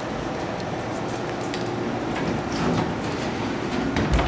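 The CNC Swiss lathe's parts conveyor running steadily, with scattered light clicks over a constant machine hum. A low thump about four seconds in.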